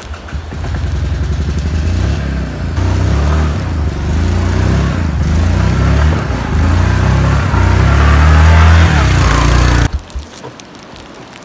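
A quad ATV's engine running as it climbs a steep dirt trail under load, its revs rising and falling and getting louder as it comes up the hill. The engine sound cuts off abruptly near the end.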